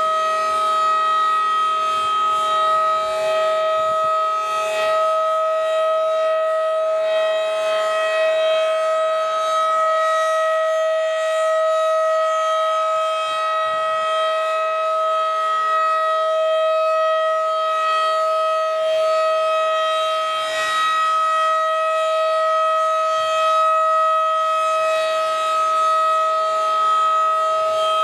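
Federal Signal 2001-DC outdoor warning siren sounding a steady tone for its weekly test. The pitch holds level throughout, with only slight swells in loudness.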